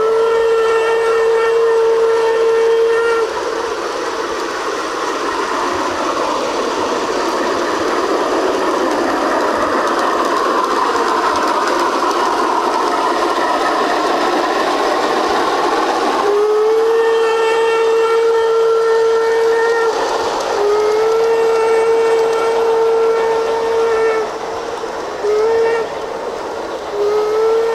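A G-scale model steam locomotive's sound system sounding its whistle. A single steady tone sounds for about three seconds at the start, followed by a long stretch of steady hissing. Then come four blasts, long, long, short and long: the grade-crossing whistle signal.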